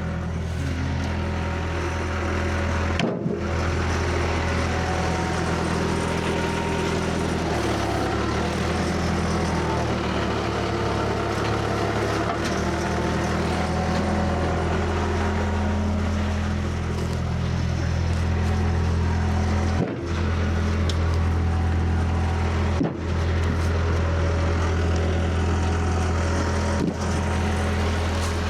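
Skid steer engine running steadily while loading firewood, its speed dropping for several seconds in the middle and then coming back up.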